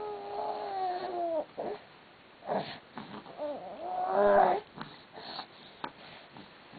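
Infant vocalizing: two drawn-out wordless sounds, each about a second and a half long, the second louder, with short breaths between.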